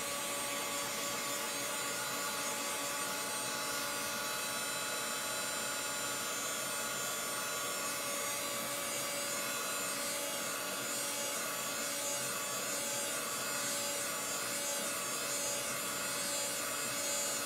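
Handheld hot-air blower running steadily, drying freshly applied ink on a canvas tote, a constant rush of air with a steady motor whine.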